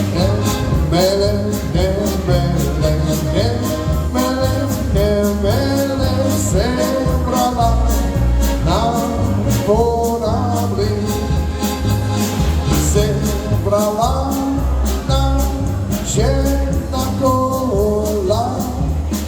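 Live Czech polka band playing a polka, with a steady bass beat under a melody line.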